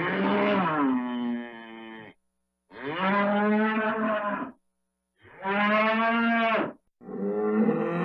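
A bovine animal mooing: three long, drawn-out moos of about two seconds each with short pauses between them, and another call beginning near the end.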